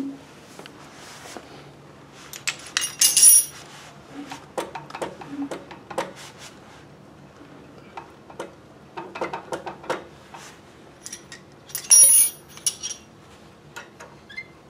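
Metallic clicks and clinks of pliers and the steel pedal-to-motor linkage rod of an industrial sewing machine being handled and adjusted. There are two louder ringing clanks, about three seconds in and again about twelve seconds in.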